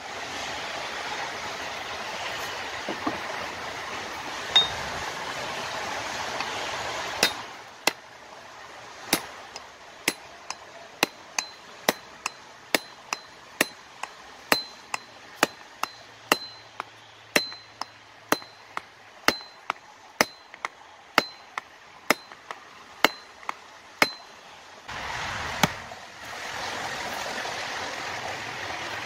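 Hammer driving a wooden wedge into the eye of a hewing hatchet to lock the head onto its new handle. A run of about two dozen sharp blows, roughly two a second, many leaving a short high metallic ring. A steady rushing noise covers the first several seconds and returns near the end.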